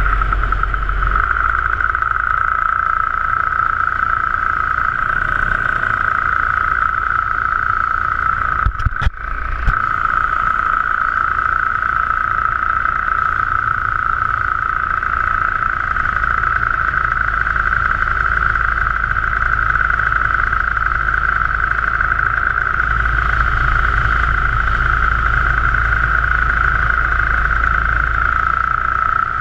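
Paramotor engine and propeller running steadily in cruising flight, heard from the pilot's head-mounted camera as a constant high drone over a low rumble. About nine seconds in there is a brief dip with a few sharp knocks.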